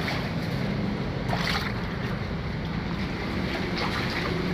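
Floodwater sloshing indoors, with a splash about a second and a half in and another near the end, over a steady rushing noise and a low hum.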